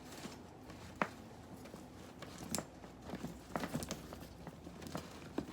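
Light handling noise: scattered soft clicks and taps with faint rustling as a new handbag and its packaging are handled, a small cluster of taps a little after the middle.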